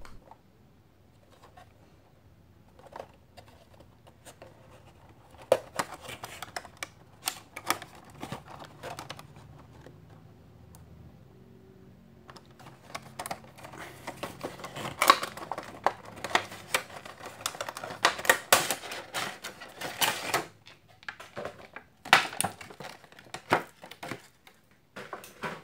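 Cardboard box and clear plastic packaging of a vinyl figure being handled and opened: irregular clicks, taps and crinkles. They are sparse at first and come thick and fast in the second half.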